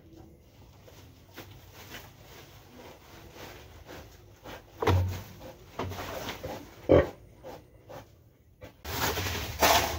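Native pig sow grunting and rustling the dry leaf bedding as she roots, shifts and lies down, with a sharp knock about seven seconds in. This restless nesting is a sign that she is about to farrow.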